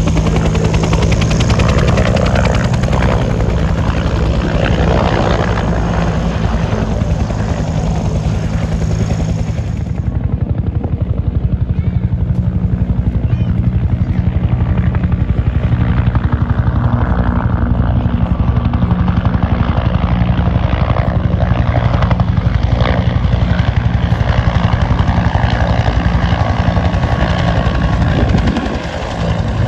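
Bell UH-1 Huey and AH-1 Cobra helicopters in flight, their two-bladed main rotors beating in a steady, rapid chop under the engine noise.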